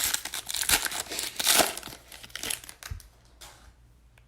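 Plastic wrapping on a trading-card box crinkling and tearing as it is pulled open by hand. The rustling dies away about three seconds in.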